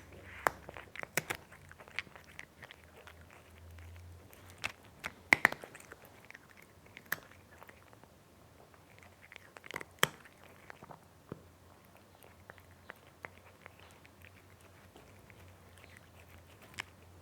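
A cat chewing its food: irregular sharp crunches and clicks, the loudest about five seconds in, thinning to only occasional clicks in the second half.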